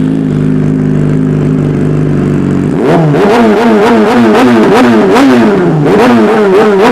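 Yamaha R6 sport bike's inline-four engine idling steadily, then from about three seconds in revved in quick repeated throttle blips, each rising and falling, about one and a half a second. The engine picks up revs on a light touch of throttle, which the owner puts down to the freshly set Dynojet Power Commander.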